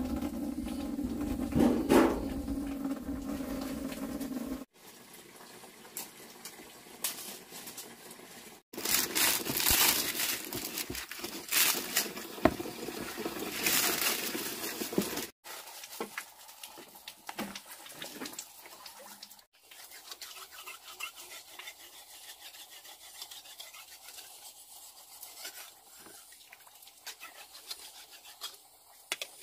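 Cooking sounds over several short cuts: a utensil scraping and stirring in a pot, loudest in the middle stretch and quieter near the end.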